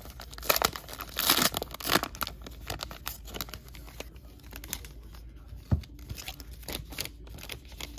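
Foil wrapper of a jumbo pack of baseball cards being torn open and crinkled, loudest in the first two seconds, then quieter rustling as the stack of cards is slid out and handled. A single sharp tap a little before six seconds.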